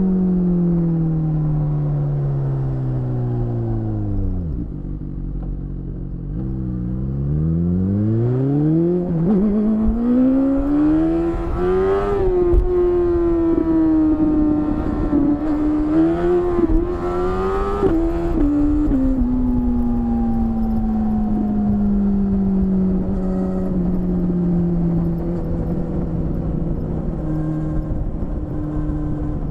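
BMW S1000RR inline-four engine through an Akrapovic exhaust, heard from the rider's seat. The engine note falls as the bike slows over the first few seconds, climbs in steps through the gears under hard acceleration, and holds high with small dips for several seconds. It then falls slowly as the throttle is eased off.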